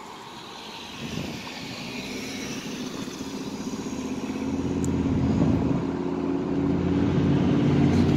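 Road traffic: a motor vehicle's engine growing steadily louder as it approaches, running with a low steady drone over traffic noise, until the sound cuts off abruptly.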